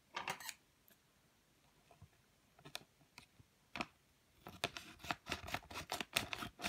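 Clear plastic packaging crinkling and crackling as fingers squeeze a foam squishy toy through the bag: a short rustle at the start, a few single crackles in the middle, then dense crinkling in the last two seconds.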